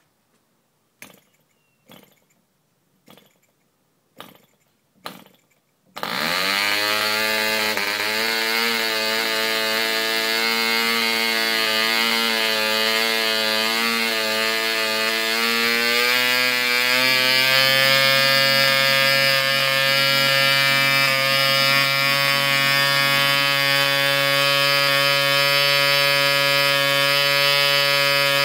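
Mills .75 model diesel engine, a tiny single-cylinder two-stroke compression-ignition engine, being hand-started: five sharp pops about a second apart as its propeller is flicked over, then it catches about six seconds in and runs. Its pitch shifts and rises as the compression is adjusted, then settles to a steady high-speed buzz.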